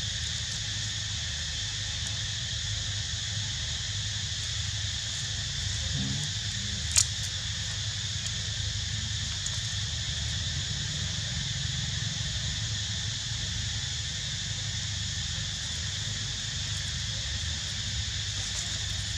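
Steady, high-pitched drone of insects, with a low rumble underneath and one sharp click about seven seconds in.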